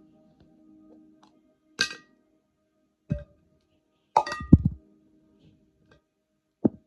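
Four separate knocks and clinks with short ringing tails, the loudest a double knock a little past the middle, after faint sustained tones fade out in the first second.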